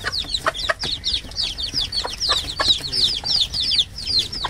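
Young chicks peeping busily: many short, high chirps that slide downward, several a second and overlapping, with short sharp ticks mixed in.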